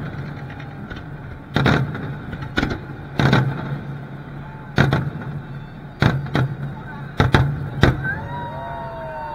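Aerial firework shells bursting in a large display: about nine sharp booms at uneven intervals, some in quick pairs, over a steady low hum. Near the end several long sliding tones rise and fall together.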